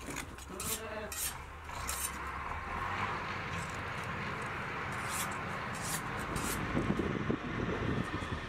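Hand shears snipping and rubbing through a sheep's thick curly fleece, with short crisp cuts at irregular intervals. A steady low engine hum runs underneath.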